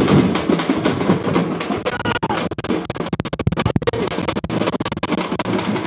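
Loud festival drumming: rapid, dense drum strokes with music, densest about two to four seconds in.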